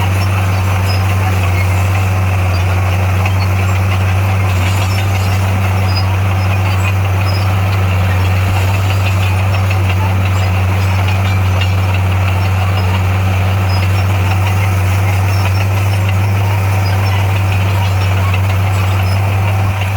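Heavy diesel engine of earthmoving equipment running steadily, a constant low drone with no change in revs.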